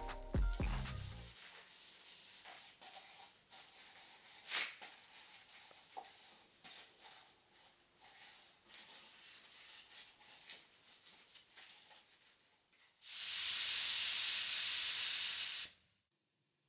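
Faint scattered clicks and knocks of wooden cups being handled on a wire rack, then, near the end, a gravity-feed spray gun hissing steadily for about two and a half seconds before cutting off sharply.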